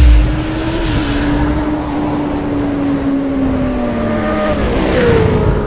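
High-revving motorcycle engine with a steady high pitch that sinks slowly over several seconds, a heavy low thump at the very start, and a further pitch drop near the end as the sound begins to fade.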